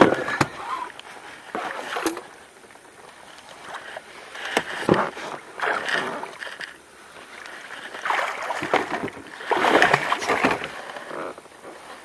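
Water splashing in several short bursts beside an inflatable boat as a hooked fish is played on a spinning rod and reeled in.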